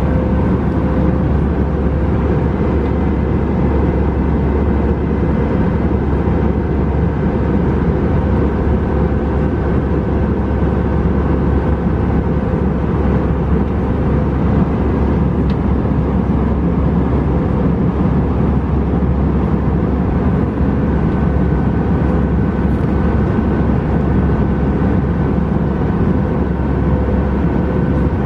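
Steady cabin noise of an Airbus A321 in flight: a constant rush of engine and airflow noise, heaviest in the low range, with a few faint steady tones running through it.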